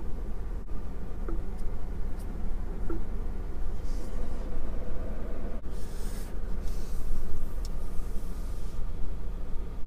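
Steady low hum inside a car's cabin, with a few faint taps and a stretch of soft airy hiss in the second half.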